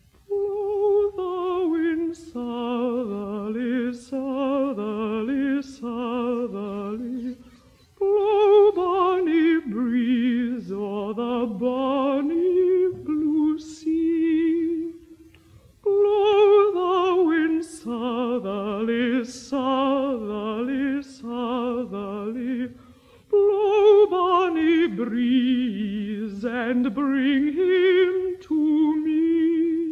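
Unaccompanied contralto voice singing a slow Northumbrian folk song with wide vibrato, in four long phrases with short breaths between. It is played from a 78 rpm shellac record, so the sound tops out early and a few surface clicks come through.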